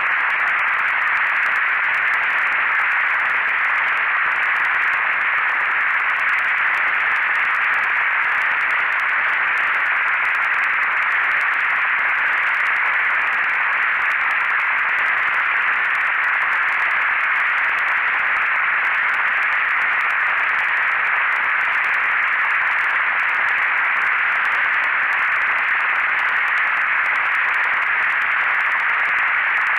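Synthesized noise made in SuperCollider: a steady, even hiss like radio static, concentrated in the upper-middle range with little bass or top end, unchanging throughout.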